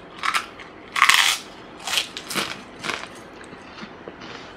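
Biting into and chewing a crunchy fried snack chip: a loud crunch about a second in, then several smaller crunches as it is chewed.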